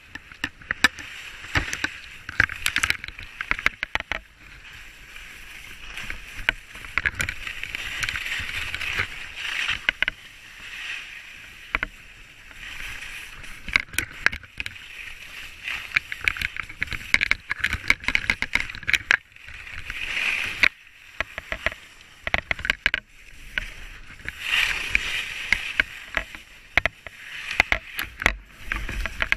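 Skis scraping and hissing over packed snow on a fast descent, the hiss swelling with each turn and easing between them. Wind buffets the microphone, with many sharp clicks and rattles throughout.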